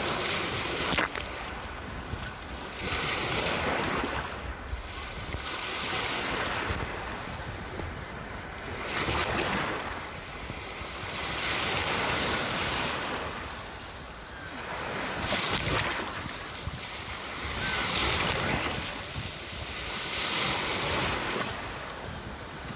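Gentle sea waves washing in and drawing back, each swell rising and falling every two to three seconds, with wind rumbling on the microphone.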